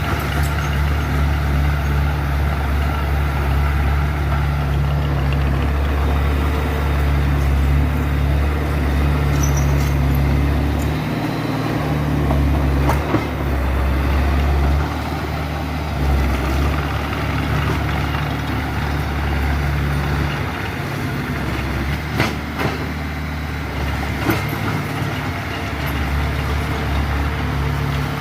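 Heavy diesel earthmoving machine running steadily with a deep engine note, with a few sharp knocks partway through and near the end.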